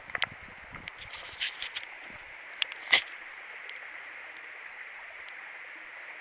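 Steady rush of a mountain creek running over rocks below. A handful of sharp clicks and rustles close to the microphone come in the first three seconds, the loudest about three seconds in.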